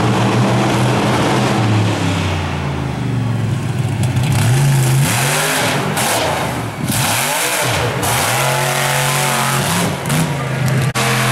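BigFoot monster truck's big engine running hard, its revs swinging up and down several times as the truck jumps the row of crushed cars about halfway through, then settling into a steady drone.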